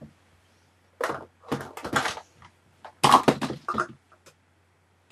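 Makeup items handled close to the microphone: crackling, clicking clatter in two loud bursts, one about a second in and one about three seconds in.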